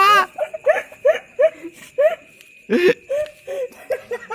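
People laughing: a run of short, separate 'ha' sounds.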